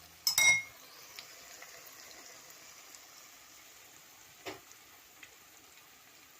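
A short metallic clatter with a brief ringing tone about half a second in, as a utensil strikes the pan. A faint steady sizzle of the egg omelette in the pan follows, with the flame switched off. A light knock comes about four and a half seconds in.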